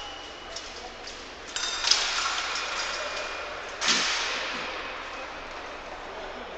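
Sounds of an épée bout: sharp metallic clicks and clinks of blade contact, with a sudden loud burst of noise just before the middle that fades slowly over about two seconds.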